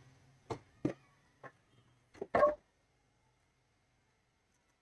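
Handling of a monitor's circuit boards and sheet-metal chassis on a workbench: a few short, light knocks and taps over the first couple of seconds, the loudest a brief clatter about two and a half seconds in.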